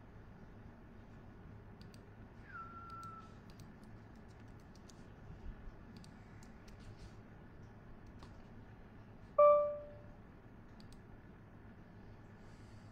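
Steady low room hum with faint scattered clicks. A brief falling tone sounds about two and a half seconds in. About nine seconds in comes the loudest sound, a single short ringing tone that fades quickly.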